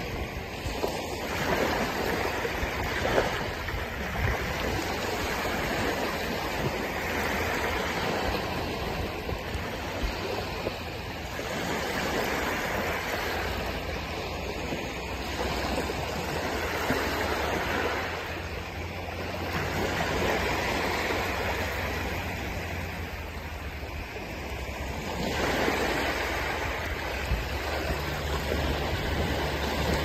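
Small waves breaking and washing up a sandy beach, the rush of surf swelling and fading about every five to seven seconds over a steady low rumble.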